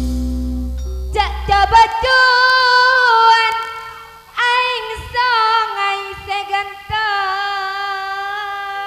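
A female sinden sings long, ornamented held notes with vibrato in two phrases, with a short break in the middle, in Madurese tayub style. The low tones of the gamelan ring out at the start, and a few low drum strokes come in the second phrase.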